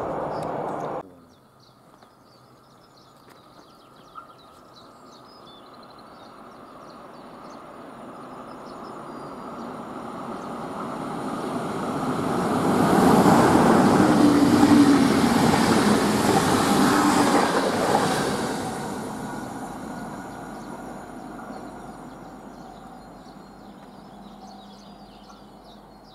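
A loud sound cuts off abruptly about a second in. Then a passenger train approaches, passes at speed and fades away: its rail and wheel noise swells slowly to a peak with a low hum, then dies down. Faint bird chirps are heard in the quieter stretches.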